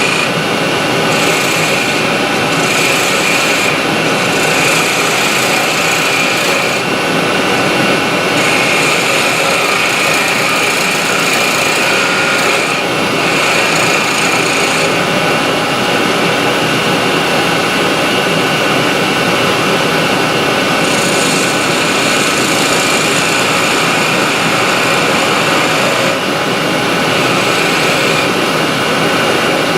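Dust extractor and Union Jubilee wood lathe running steadily, with a small turning tool cutting into a spinning wooden spindle in strokes that add a hiss which comes and goes every few seconds.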